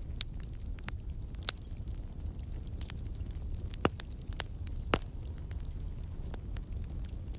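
Wood fire crackling in a fireplace: scattered sharp pops and snaps over a low, steady rumble. The two loudest pops come about a second apart near the middle.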